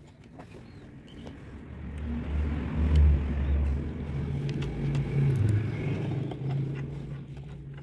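A motor vehicle's engine rumbling past, swelling about two seconds in and loudest around three seconds, then holding a steady low hum that eases off near the end.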